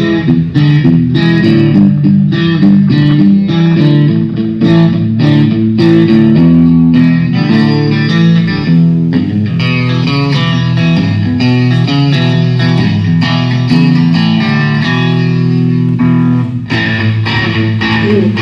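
Amplified guitar played during a band's sound check: a continuous run of picked notes and chords.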